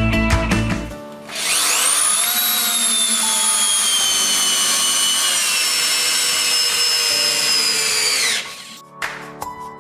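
ZUBR corded drill-driver motor starting about a second in, whining up to speed, its pitch sagging slowly as it runs for about seven seconds, then switched off and winding down. Background music plays before and after.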